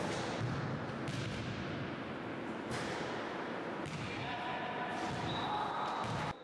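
Basketballs thudding on a sports hall floor and knocking off the backboard, a few irregular knocks echoing in the hall over a steady murmur of the room.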